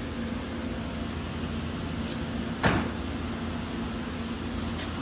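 A steady low hum with a single sharp knock a little past halfway through.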